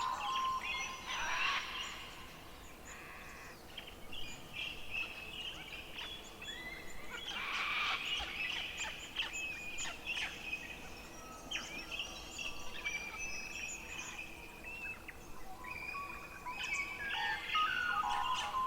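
Forest songbirds singing together: many overlapping chirps, trills and whistles, busiest about a second and a half in, around eight seconds, and near the end.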